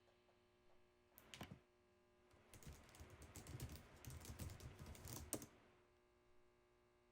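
Typing on a computer keyboard: a couple of key presses, then a quick run of keystrokes for about three seconds, ending in one harder keystroke.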